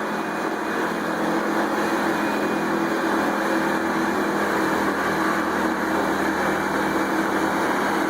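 Wood chipper's engine running at a steady speed, a constant mechanical drone with no changes in pitch and no chipping strikes.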